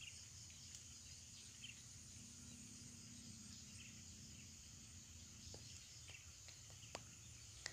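Near silence with faint, steady, high-pitched insect chirring, like crickets, and a few faint clicks in the second half.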